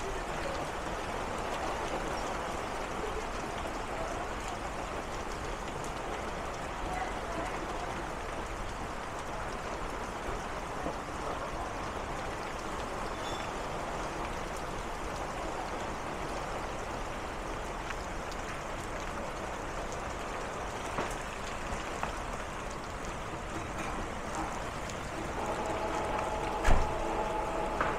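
Steady storm rain, an even hiss with scattered sharp taps. Near the end a steady two-note tone comes in, and there is one loud knock.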